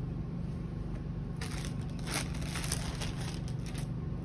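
Clothes and plastic packaging rustling and crinkling as garments are handled and laid on a counter. The crinkling runs for about two seconds, starting about a second and a half in, over a steady low hum.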